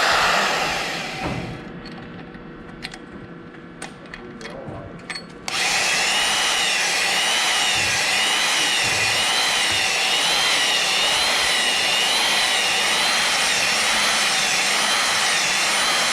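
Power hone spinning in the piston pin bore of a cast Rumely Oil Pull piston. It runs down and stops over the first two seconds, a few light clicks follow, then about five seconds in it starts again and runs steadily, its high whine wavering up and down regularly as the hone is stroked back and forth through the bore.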